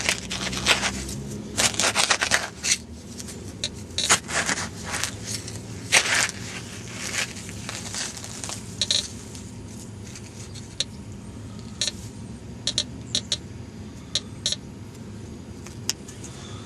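A hand digging tool cutting a plug in park soil and turf: repeated scraping and crunching strokes, busy for the first several seconds and then sparser, as the dirt is worked loose around a shallow metal-detector target.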